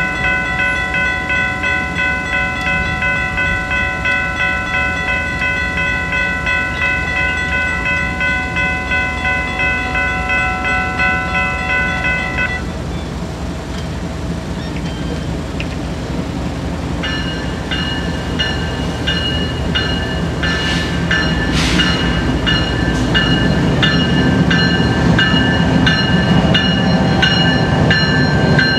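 Grade-crossing warning bell ringing in a steady rhythm, falling silent about twelve seconds in. A few seconds later a second, higher bell starts ringing in rhythm while the rumble of an approaching Florida East Coast GE ES44C4 diesel locomotive grows steadily louder.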